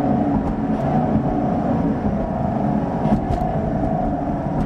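Car engine and road noise heard from inside the cabin while driving in traffic, a steady hum and rumble.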